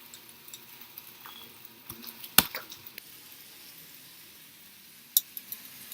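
Chicken frying faintly in a pan, with a few sharp clicks and taps of utensils, the loudest about two and a half seconds in and a short cluster near the end.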